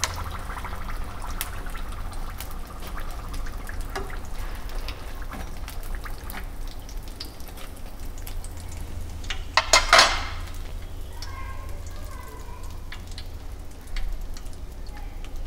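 Freshly fried spring rolls dripping and faintly crackling in hot oil as they are lifted out with tongs onto a wire spider strainer, with scattered light clicks over a steady low hum. About ten seconds in comes a brief, louder burst of crackling.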